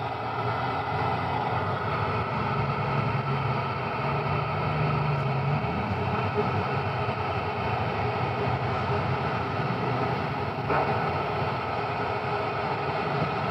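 FM radio receiver tuned to the SO-50 satellite's 70 cm downlink with the squelch open, giving a steady hiss of static.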